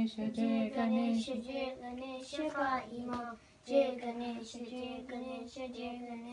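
Children chanting a Sanskrit devotional hymn to Ganesha, short sung syllables held on a few steady notes, with a brief pause between phrases about three seconds in.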